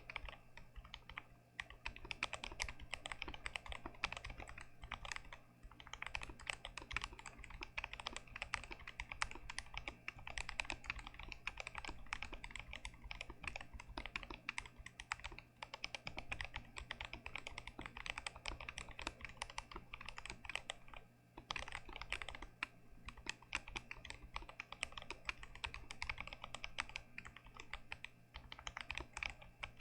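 Continuous fast typing on an unmodded GMMK Pro mechanical keyboard with Gazzew Boba U4T tactile switches: a dense run of keystroke clacks, with a brief pause about two thirds of the way through.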